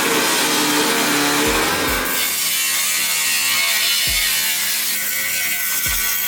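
A steady rasping, scraping noise with a rap track playing under it: deep falling bass drops land a few times, and pitched tones run for the first two seconds or so.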